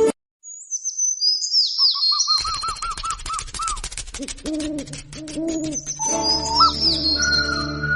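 A run of bird calls in place of the music: high falling whistles, then a quick series of repeated chirps, then a few lower hooting notes. The music comes back in about six seconds in.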